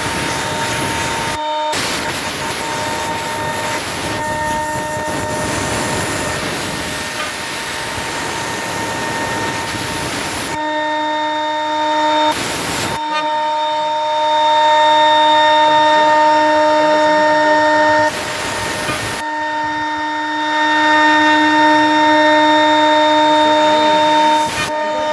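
CNC wood router running with a steady whine from its spindle, the bit cutting wood with a loud rushing noise through roughly the first ten seconds and twice more briefly later on.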